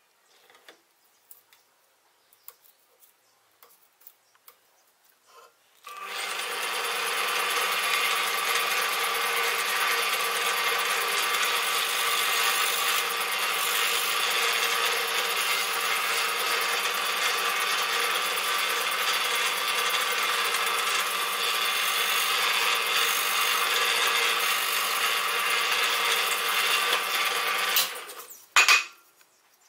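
Bench drill press running with its bit boring into a block of wood: a steady motor hum under the hiss of the bit cutting, starting about six seconds in and stopping suddenly near the end, followed by a couple of sharp knocks.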